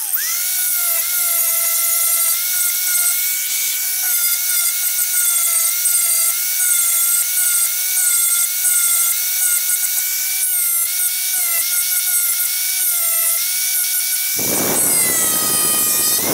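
Electric angle grinder with an abrasive disc running at a steady high whine while grinding a small wooden block. The grinding noise thickens and gets heavier for a couple of seconds near the end, when the wood is pressed harder against the disc.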